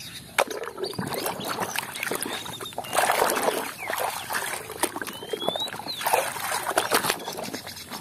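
Muddy, soapy water sloshing and splashing in a plastic basin as a toy train is dunked and scrubbed by hand, with irregular small splashes and drips.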